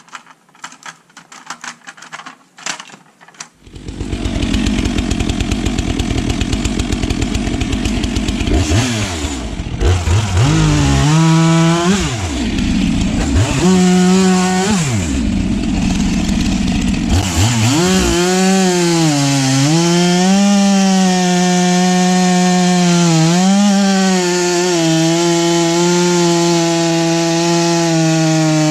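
STIHL MS 462 two-stroke chainsaw bucking firewood logs. After a few seconds of clicks and knocks the saw comes in loud, its engine note repeatedly dropping and climbing back as the chain loads up in the wood, then running at a high, mostly steady pitch with small dips through the cut.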